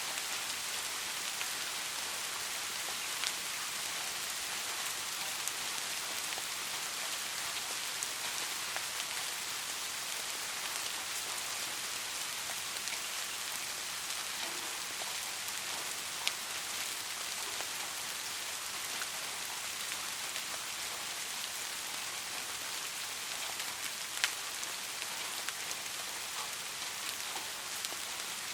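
Steady soft rain falling, an even hiss of many drops with now and then a single louder drop tap, about four in all.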